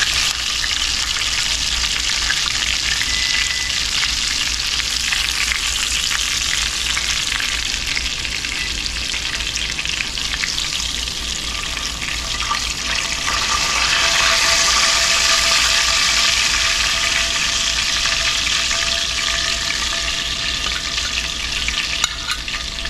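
Chicken frying in shortening in a cast-iron skillet: a steady, loud sizzle of hot grease around pieces that are browned and nearly done.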